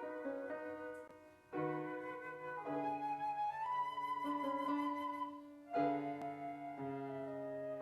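Slow, quiet instrumental church music: flute-toned chords and melody held steadily, phrase by phrase, with short breaks about one and a half and six seconds in.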